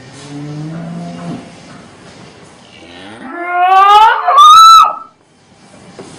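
A cow mooing: a short low moo, then a long, very loud call that rises steeply in pitch into a high bellow and cuts off.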